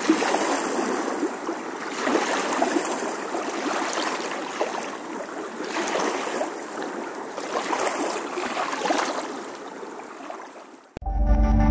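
Choppy lake water lapping and splashing against a stone embankment wall, surging roughly every two seconds. Near the end it cuts off abruptly into music.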